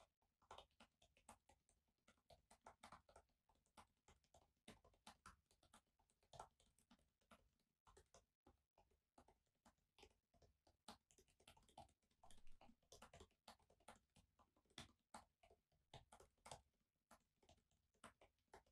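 Faint, irregular clicking of typing on a laptop keyboard, several keystrokes a second.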